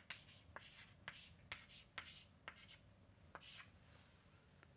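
Chalk writing on a chalkboard: faint scratching strokes and light taps of the chalk against the board, a tap roughly every half second, thinning out near the end.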